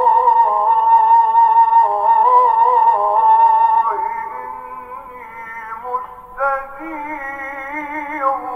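Recorded ibtihalat, Islamic devotional chanting: a solo male voice holding long, wavering, ornamented notes. It grows softer about four seconds in.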